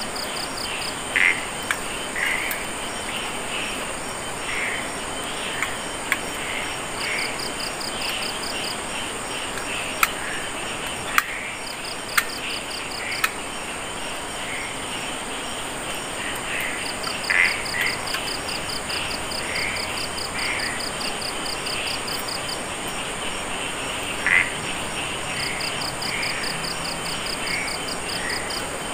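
Chorus of insects and frogs: a steady high insect trill, a pulsed chirping that comes in short runs again and again, and scattered frog calls. A few sharp clicks sound about ten to thirteen seconds in.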